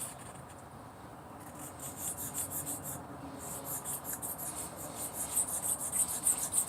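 Metal hair clipper blade being rubbed back and forth on a wet whetstone, with quick scraping strokes several times a second. The strokes start about a second and a half in and grow louder after about three and a half seconds.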